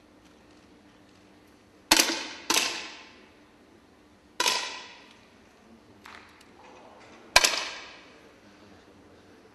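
10 m air rifle shots: four sharp pops, the first two about half a second apart and the last two a few seconds later. Each has a short echoing tail.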